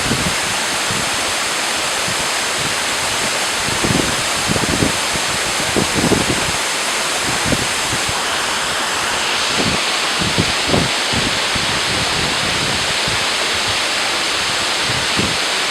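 Waterfall: a loud, steady rush of falling water, with a few brief low buffets of wind on the microphone.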